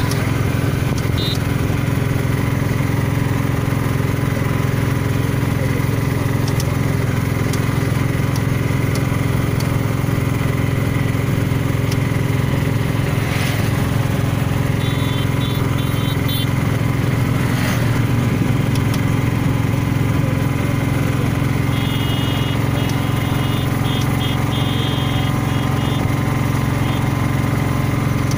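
Steady engine drone of the moving vehicle that carries the camera, at an even pace throughout. Brief high-pitched tones come in about halfway through and again a few seconds before the end.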